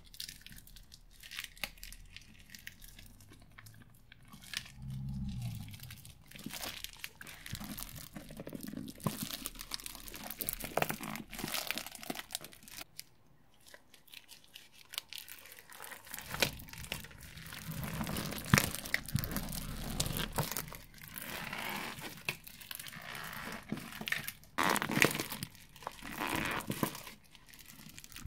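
Thin plastic glue tubes crinkling and crackling irregularly as gloved hands squeeze them, with louder, busier stretches in the middle and near the end.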